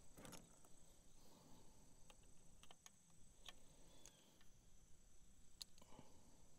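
Near silence: a few faint, scattered metal clicks of a wrench and screwdriver on the valve rocker-arm adjusters, over a steady high insect drone.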